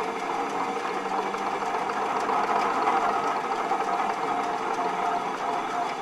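A Ransomes & Rapier railway crane's winch machinery running steadily as it lowers a heavy steel frame hanging on chains.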